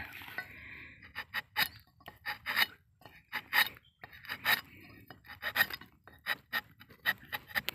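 Rubber-tapping knife shaving a cut into a rubber tree's bark: an irregular run of short, sharp scraping strokes, about two a second, with fainter rubbing between them.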